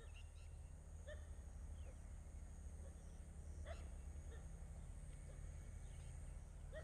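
Quiet background: a steady low hum with a few brief, faint animal calls, one about a second in and another a little before four seconds.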